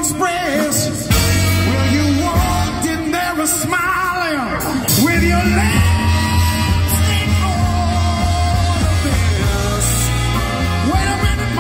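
Live band with a saxophone section, keyboards, electric guitar and drums playing, while the male lead singer sings long wavering held notes over a steady bass line.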